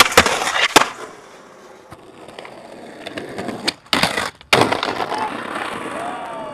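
Skateboard on concrete: sharp clacks of the board popping and landing at the start and again just under a second in, then, about four and a half seconds in, the trucks grinding along a concrete ledge with a steady scraping rush.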